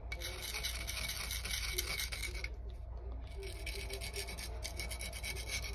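Steel knife blade scraping across the coarse side of a sharpening stone oiled with mineral oil, being sharpened with steady strokes. The scraping stops briefly a little before halfway through, then resumes.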